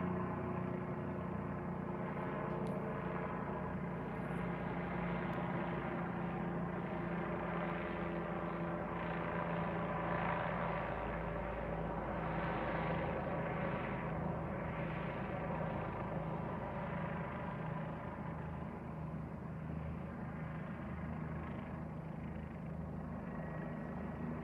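Life-flight helicopter heard from the ground: a steady engine and rotor drone that swells a little around the middle and then eases off slightly.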